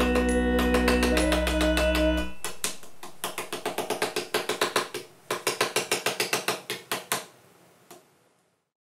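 Background music with held tones ends about two seconds in. Then comes a rapid clicking rattle, about six clicks a second in pulsing runs, as a Magnetact paper toy with a magnetic rubber strip is slid across a magnetic rubber sheet. The clicking fades out near the end.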